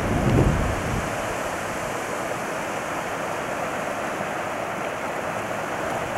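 A shallow, low river rushing steadily over rocks and through a riffle close by. In the first second a low rumble of wind buffets the microphone.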